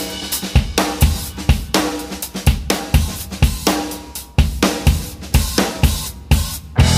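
Background music: a drum kit playing a steady beat of about two hits a second, with pitched instruments over it.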